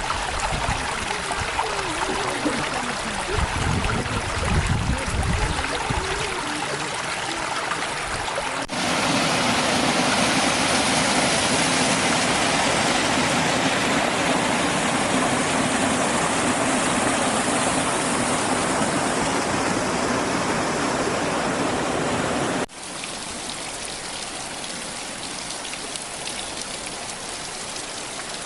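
Rushing water, a steady hiss, heard in three stretches with sudden jumps in level about 9 and 23 seconds in; low rumbling gusts of wind on the microphone during the first few seconds.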